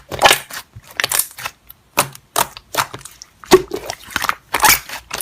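Slime being squeezed and pressed by hand, giving an irregular run of sharp crackling pops and squelches, roughly two or three a second.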